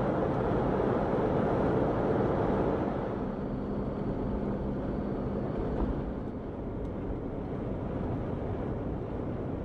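A Jeep Wrangler Unlimited Rubicon driving, its engine and road noise heard from inside the cab as a steady noise, with a faint engine hum in the middle stretch.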